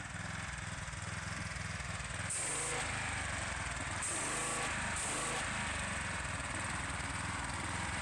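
Gas pressure washer's small engine running steadily under test, now strong and smooth after the repair for low power and cutting out. Short bursts of hiss come about two, four and five seconds in.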